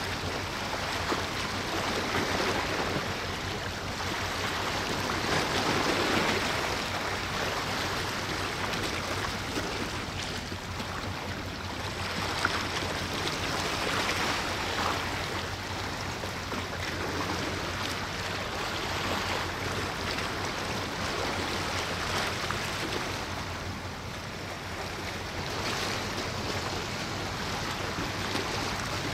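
Steady wash of seawater with some wind, swelling a little now and then, over a faint even low hum.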